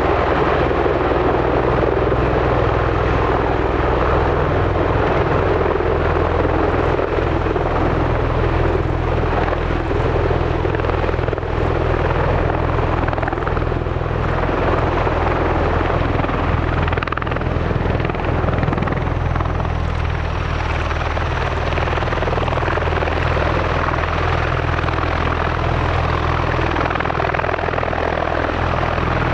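US Marine Corps MV-22 Osprey tiltrotor running steadily, its two proprotors and turboshaft engines giving a deep, even drone under a broad rush of noise.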